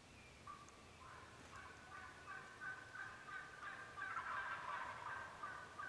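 Wild turkey gobbling, faint and rattling, starting about half a second in and loudest about four seconds in.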